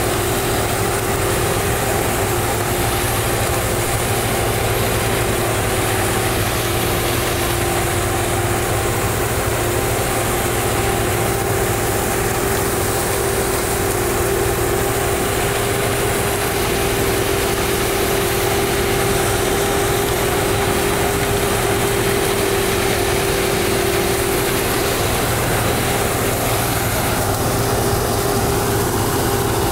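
Case sugarcane harvester running steadily while cutting and chopping cane, with the tractor alongside also running: an even engine drone with a steady held whine over it.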